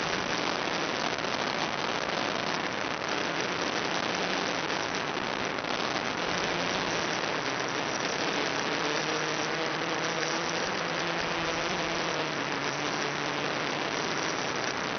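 Steady static hiss on the analog FPV video link's audio channel, even throughout, with faint wavering tones in the middle.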